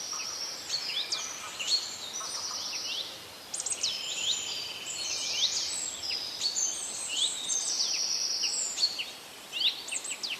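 Several small songbirds calling together: many overlapping high-pitched chirps, quick down-slurred notes and short rattling trills, over a steady background hiss.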